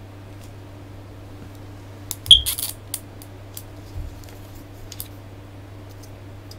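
Hard plastic action figure handled and turned in the hands: a quick cluster of clicks and taps about two seconds in, then a few light ticks.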